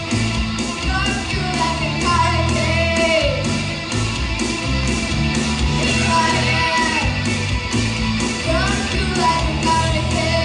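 A young girl singing a rock ballad in English over a rock backing with a steady drum beat. She holds and slides between long notes.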